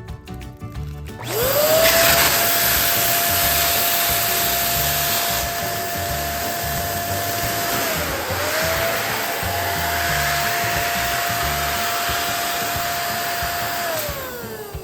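Electric balloon pump running while inflating a balloon: its motor whine rises quickly to speed about a second in, holds a steady pitch with a brief dip about midway, and winds down with a falling pitch near the end.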